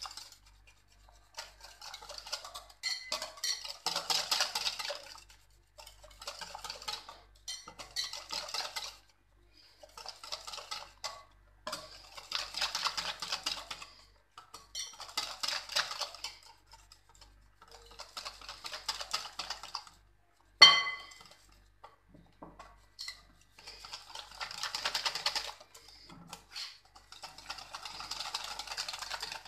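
Wire whisk beating pancake batter in a glass bowl, in bouts of quick scraping and clicking a second or two long with short pauses between. About two-thirds of the way through comes a single sharp, ringing clink against the bowl, the loudest sound.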